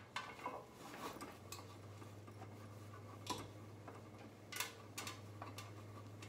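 Faint rustling and scattered light clicks of ribbon being handled and tied onto a lantern's handle, over a steady low hum.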